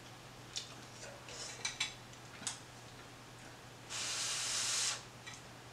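A few faint taps of chopsticks, then about four seconds in one loud, hissing slurp of a mouthful of hot ramen noodles, lasting about a second.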